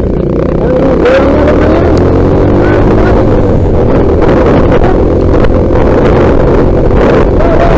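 Trail motorcycle engine running while riding, its note wavering up and down with the throttle, with some wind on the microphone.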